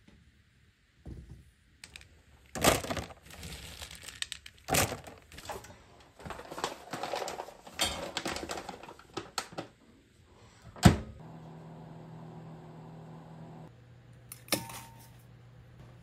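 Paper packet of ginkgo nuts rustling and rattling as it is handled and set into a microwave oven. About eleven seconds in the microwave door shuts with a sharp clack, and the oven starts running with a steady hum. A short click follows a few seconds later.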